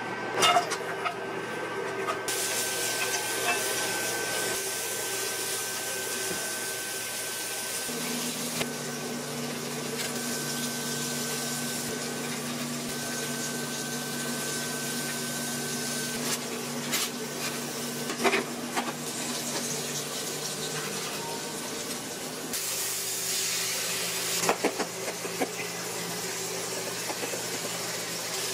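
Sliced onions and shrimp sizzling in hot oil in a frying pan, a steady hiss with a few light clicks of utensils. Through the middle stretch a lower steady hum joins in from a countertop air-fryer oven frying rice-paper-wrapped pork.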